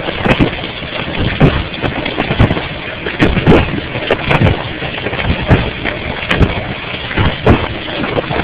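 Running dishwasher heard from inside the tub: water jets spraying and splashing against a phone sealed in a plastic freezer bag, swelling roughly once a second as the spray arm sweeps past.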